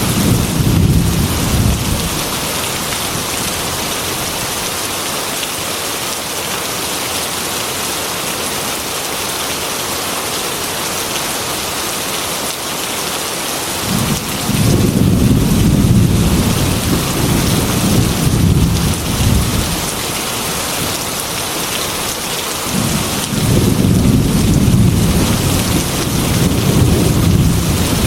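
Heavy rain pattering on a glass window, with rolls of thunder. One roll dies away about two seconds in, another begins about halfway and lasts several seconds, and a third begins a few seconds before the end.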